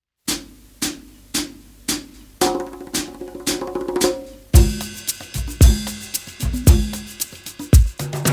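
Background music led by a drum kit: a steady beat of percussive hits that builds about four and a half seconds in, when heavy kick drums and sustained instrument tones come in.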